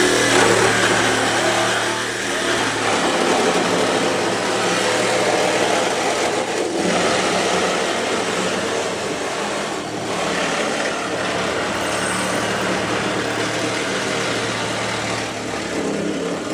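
A machine running steadily, a loud even noise with a low hum underneath, which stops abruptly at the end.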